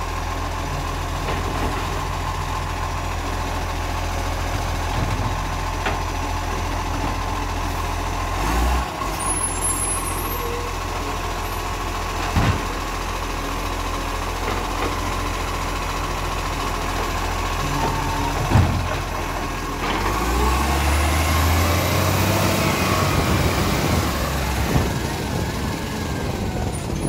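Side-loading garbage truck idling while its automated arm lifts and tips a wheelie bin into the hopper, with a few sharp bangs from the bin and arm. About twenty seconds in, the engine gets louder and rises in pitch as the truck pulls away.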